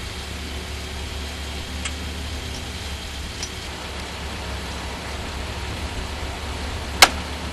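Linde hydrostatic forklift's engine idling steadily with a low hum, with a sharp click about seven seconds in.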